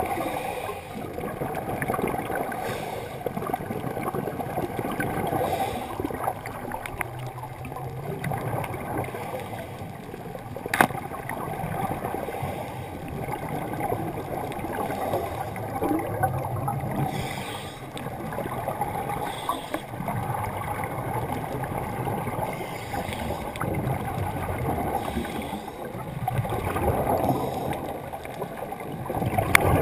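Underwater noise heard through a GoPro's waterproof housing: a steady rushing hiss with a low rumble and swells of bubbling from divers' exhaled air. A single sharp click about 11 seconds in.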